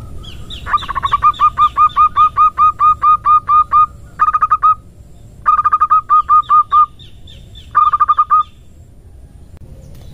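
Female zebra dove (perkutut) calling, a lure call: a fast run of about a dozen short, hoarse notes, about four a second, then three shorter bursts of rapid notes with short pauses between.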